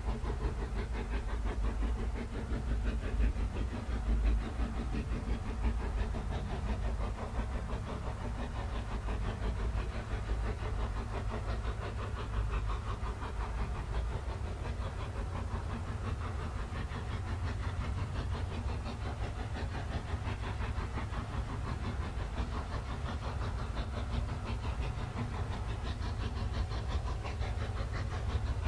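Exhaust blast of Brienz Rothorn Bahn steam rack locomotive No. 2, beating rapidly and steadily as it works up the rack grade.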